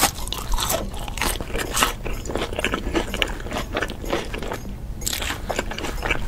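Chewing sound effect: close, rapid, irregular crunching of crisp food in the mouth, ASMR-eating style, with a brief pause about five seconds in.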